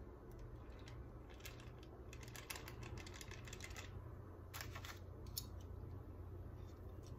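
Light, scattered clicks and crackles as metal kitchen tongs work in a pot of bread dough frying in oil, coming in quick clusters, the densest over the first half.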